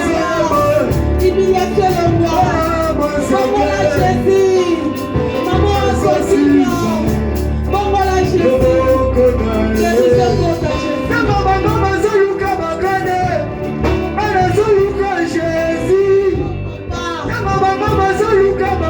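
Church worship music: voices singing a melody over instrumental accompaniment with a steady bass line, continuing without a break.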